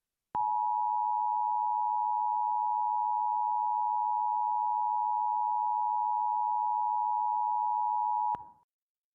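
Emergency Alert System attention signal: two steady tones of 853 and 960 Hz sounding together for about eight seconds, then cutting off sharply. This is the alarm that announces an alert message is about to begin.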